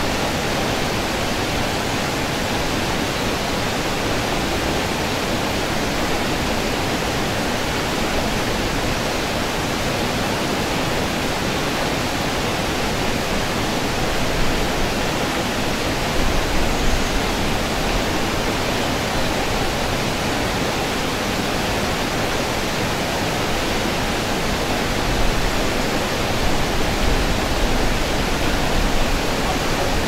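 Waterfall and river in a rocky gorge, water rushing steadily in an even roar. A few low bumps come through about halfway and again near the end.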